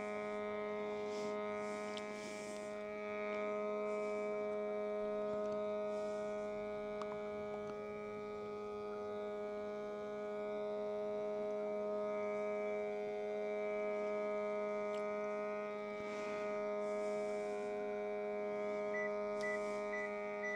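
A steady electrical hum made of several even, unchanging tones, with four short high beeps near the end.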